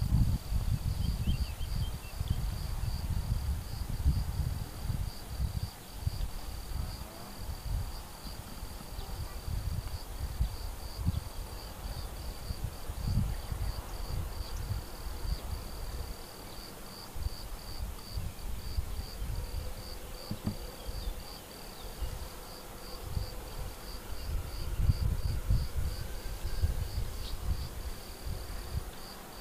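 An insect chirping steadily in a fast, even pulsing high note. Under it a low rumbling noise comes and goes, strongest at the start and again about 25 seconds in.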